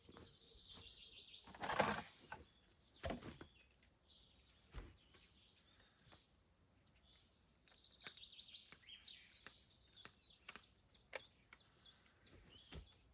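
Small birds chirping and singing in short phrases, with a few sharp knocks, the loudest about two seconds in.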